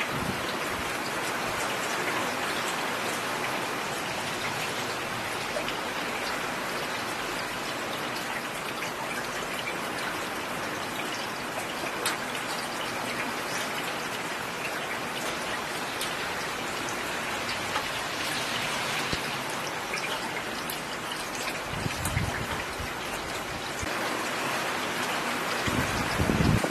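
Steady rain falling on a road surface, an even hiss with scattered sharper drop ticks. A brief low rumble comes twice, once about two-thirds through and again near the end.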